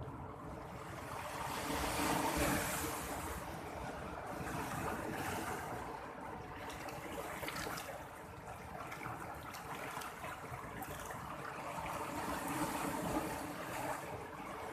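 Sea waves: a rushing surf noise that swells and falls back, loudest about two seconds in and again near the end.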